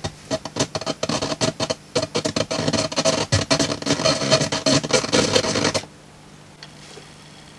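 Music played from a Teac CD player breaking up into rapid, irregular clicks and stuttering fragments as the player mistracks the disc, then cutting out about three-quarters of the way through. The player appears to have lost track of the data stream from the disc.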